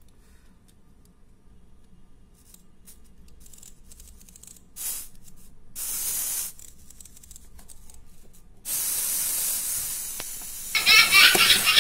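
Small plastic wind-up toy being handled and wound with faint clicks, then released, its clockwork mechanism running with a steady whirring hiss that starts abruptly about three-quarters of the way in. Near the end a louder, different sound joins over it.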